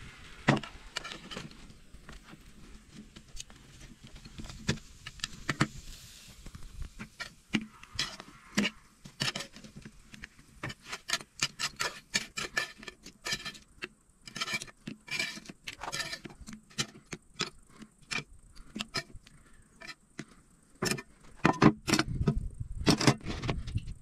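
Metal tongs clicking and scraping against a speckled enamel-coated frying pan and plates as chicken and fried potatoes are served out, a long run of quick light clicks with a few louder knocks near the end.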